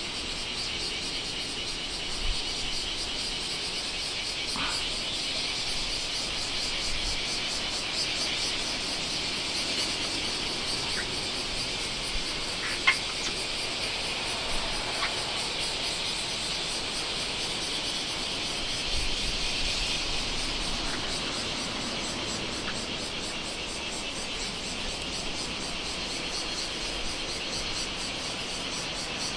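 Insects chirring in a steady, high-pitched chorus, with a few faint clicks in the middle.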